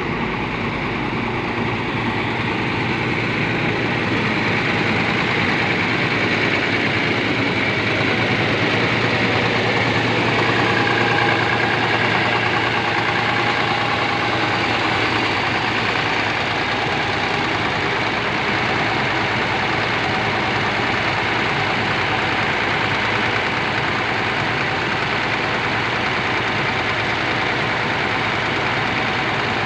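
Intercity bus's diesel engine idling steadily, heard close to the open engine bay.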